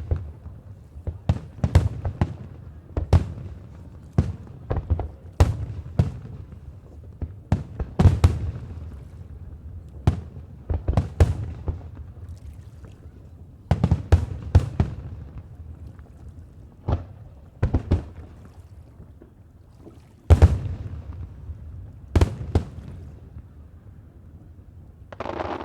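Aerial fireworks shells bursting overhead in a rapid, irregular series of loud bangs, often in quick clusters, each trailed by a low rumbling echo.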